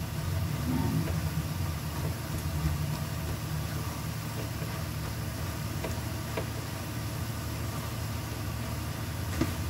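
A steady low hum runs throughout, with a few faint scrapes and taps as a silicone spatula stirs minced beef in a heavy iron wok.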